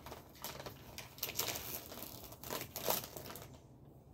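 Close crinkling and rustling of crinkly material in uneven bursts, loudest about a second and a half in and again just before three seconds, dying away about half a second before the end.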